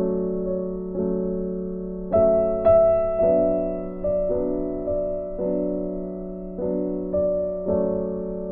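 Background piano music: a slow melody of chords struck about once a second, each dying away before the next.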